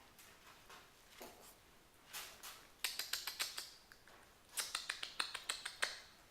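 Kittens' claws clicking and scrabbling in two quick flurries of sharp ticks, the second starting about a second and a half after the first ends.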